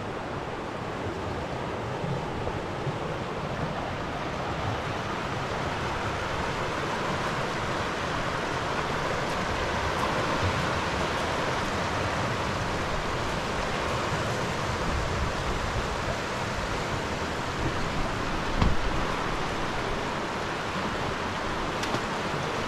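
Fast river water rushing over rapids, a steady noise. A single dull thump rises above it about three quarters of the way through.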